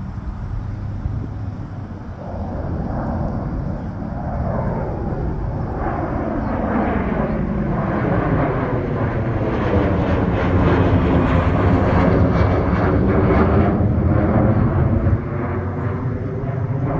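Business jet climbing out just after takeoff and passing overhead. Its engine noise builds steadily, is loudest about two-thirds of the way through, and has a sweeping, phasing whoosh as it goes over.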